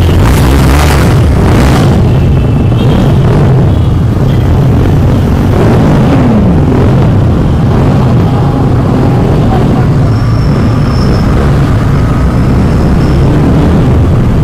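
Motorcycle on the move, heard from a helmet mic: a steady, loud low rumble of the bike's single-cylinder engine mixed with wind buffeting the microphone, with other motorcycles running close by.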